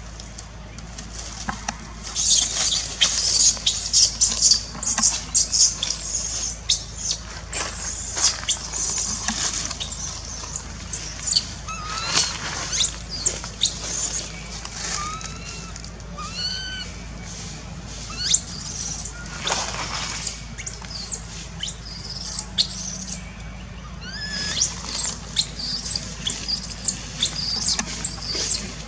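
Baby long-tailed macaque screaming in distress: rapid runs of shrill squeals that rise and fall in pitch, easing to lower, quieter cries in the middle before the loud screams resume.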